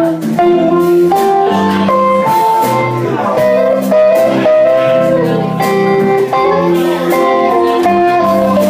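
Live blues band playing, with electric guitar carrying a melody over bass, keyboard and drums.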